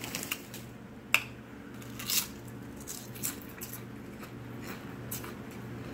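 Close-up chewing of crunchy potato chips: irregular crackly crunches and wet mouth sounds, with a sharp crunch about a second in.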